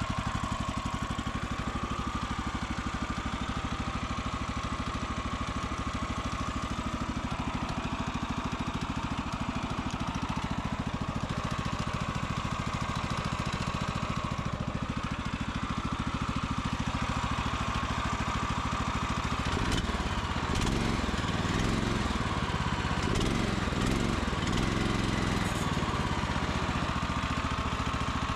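The sawmill's Kohler 14 hp single-cylinder engine running steadily just after a cold start on choke. About twenty seconds in its note turns rougher and less even.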